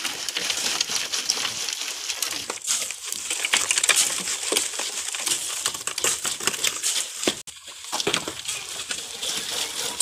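Wet gravel-laden concrete being tipped from buckets into wooden formwork, a gritty scraping and sliding full of small crunches. The sound drops out briefly about seven and a half seconds in.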